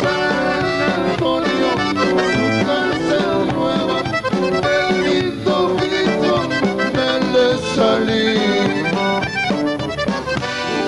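Live Tejano band music, with the accordion prominent over the band.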